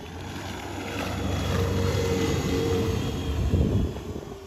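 The 6000 W electric motor of a homemade foam boat whines at a steady pitch under way, over the rush of water and a low rumble. The sound swells to its loudest about three and a half seconds in, then falls away sharply.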